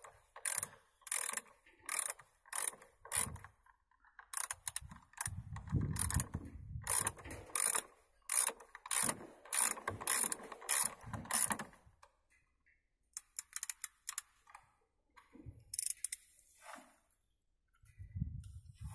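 Hand ratchet wrench clicking in quick repeated strokes as a bolt is undone, the bolt turning easily. The clicking stops about twelve seconds in, leaving a few faint knocks.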